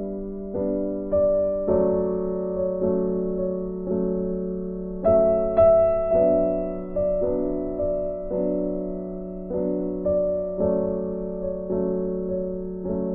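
Background keyboard music: slow chords struck about once a second, each fading before the next.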